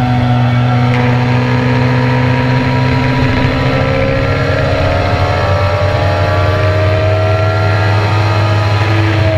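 Kawasaki ZX-10R inline-four sport-bike engine running hard at high motorway speed, a steady loud drone heard from the rider's seat. Its pitch sags a little, then climbs again in the second half as the bike picks up speed.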